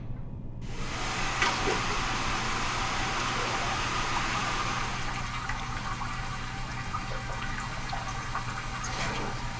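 A toilet flushing in a public restroom: a sudden rush of water starts about half a second in, then eases into a steady run of water, over a constant low hum.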